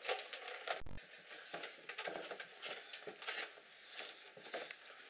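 Faint, irregular clicks and rustles of handling and movement in a small room, with one dull thump a little under a second in.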